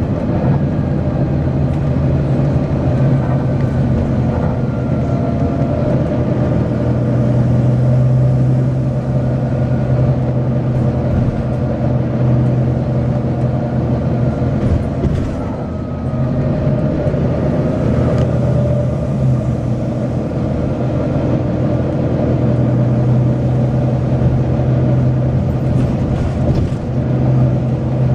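Volvo B9TL double-decker bus's six-cylinder diesel engine running steadily with a deep drone, with a few faint whines that slide down in pitch.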